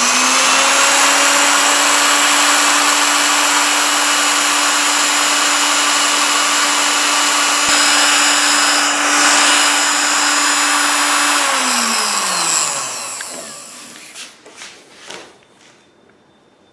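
Small add-on electric sewing-machine motor, made in Japan, running with no drive belt fitted, so it spins unloaded: it comes up to speed in under a second to a steady hum with a hissing rush, then about eleven seconds in it winds down, falling in pitch over about two seconds. A few light clicks follow.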